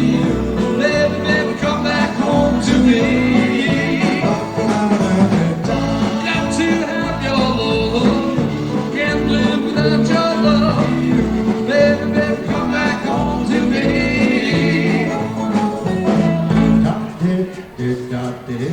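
Live doo-wop cover band performing, with singing over a band keeping a steady beat.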